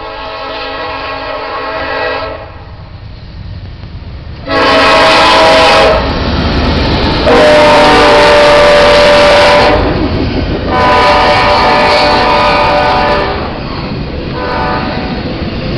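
Norfolk Southern AC44C6M diesel locomotive's air horn sounding a series of long blasts as it approaches and passes, the first one softer, the loudest when the engine is alongside about halfway through, and a fainter one near the end. Under the horn, the passing train's wheels and double-stack intermodal cars rumble on the rails.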